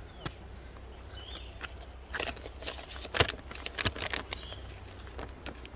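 Footsteps: a run of light, irregular steps at roughly three a second, starting about two seconds in.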